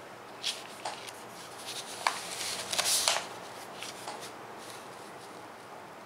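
Handling of a sheet of thin onion-skin paper on a desk: a few light clicks, then a rustling, scraping rub from about two seconds in that stops a little after three seconds, as the sheet is slid along.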